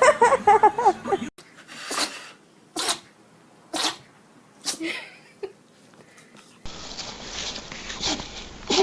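A puppy sneezing: a run of five short, sharp sneezes about a second apart, then one more sneeze near the end.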